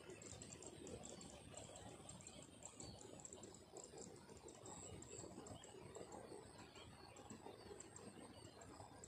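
Near silence: faint outdoor ambience with light, rapid high-pitched ticking throughout.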